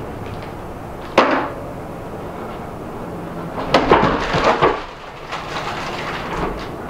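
A sharp knock on a wooden tabletop about a second in, then a quick cluster of knocks and clatter around four seconds in as something is handled on the table.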